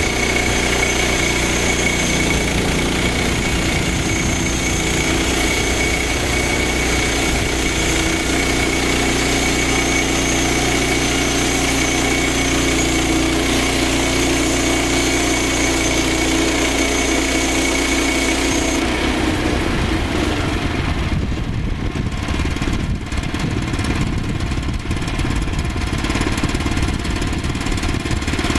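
Portable band sawmill's small gas engine running steadily, with a thin high whine over it. About two-thirds of the way through the whine stops and the sound turns lower and rougher.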